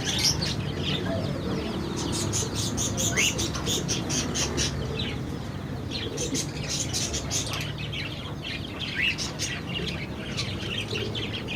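Many small birds chirping busily, in rapid clusters of high chirps, over a steady low background rumble.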